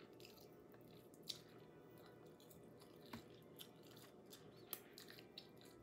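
Near silence broken by a few faint, soft clicks of someone chewing food.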